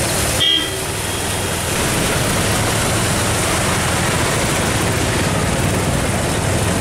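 Traffic on a flooded road: motorcycles and a van running through standing rainwater, a steady wash of engine and water noise. It briefly drops out about half a second in.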